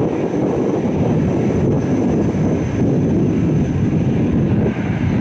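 Airliner engine noise: a loud, steady rumble.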